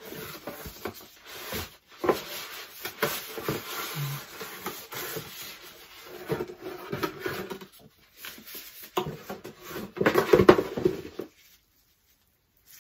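Cardboard packaging and plastic wrapping rustling and scraping as an appliance is pulled out of its box and handled, with many small knocks. It is loudest about ten seconds in and stops about a second before the end.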